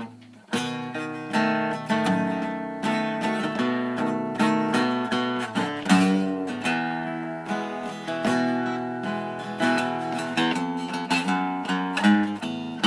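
Acoustic guitar strummed in a steady rhythm, an instrumental break between sung verses; the strumming picks up about half a second in.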